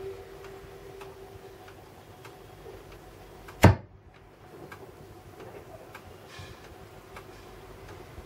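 Philips Hi Q International record player: light, regular ticking, with a single sharp mechanical click about three and a half seconds in as its speed/start-stop selector knob is turned.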